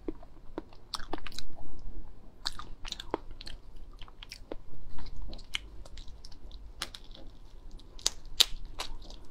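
Crackling and sharp clicks of a raw slipper lobster's hard, spiny shell being pried and broken apart by hand, mixed with wet chewing.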